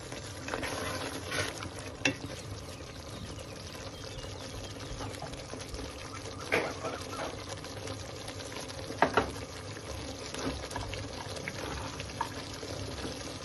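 Thick tomato sauce cooked down in olive oil, bubbling and spluttering in a steel pot while a spatula stirs it. A few sharp knocks sound over it.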